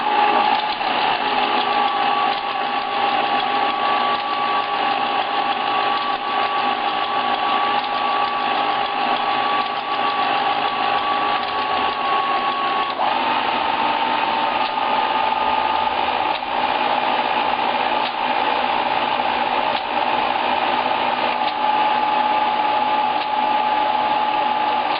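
AN/ART-13 transmitter's Collins Autotune motors whirring as they drive the tuning mechanism to a stored 40-metre channel: a steady motor whine that shifts in pitch about halfway through, then stops abruptly once the channel is reached.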